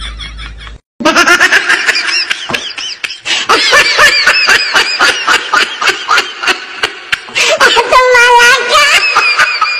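Loud, high-pitched giggling laughter in quick repeated bursts, starting after a brief cut to silence about a second in.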